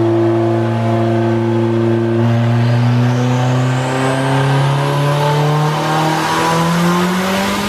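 Turbocharged car engine making a full-throttle dyno pull on E85 with its exhaust unbolted. The note holds steady for about two seconds, then climbs steadily in pitch through the revs, with a rising whistle over it.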